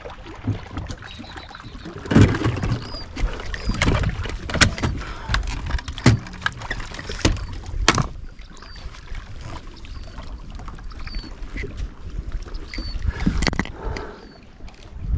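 Handling noise on a fishing boat: irregular knocks and clicks of gear and footing against the hull over a low rumble of wind and water, with faint short high chirps every second or two.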